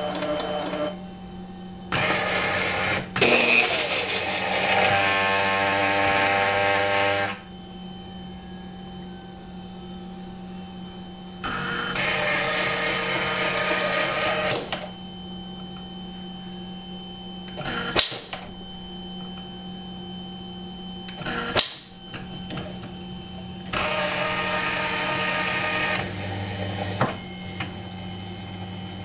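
CarveWright carving machine running its board-measuring routine: a steady electrical hum, with several bursts of motor whine a few seconds long as the board is fed and the carriage moves. Two sharp clicks come in the second half.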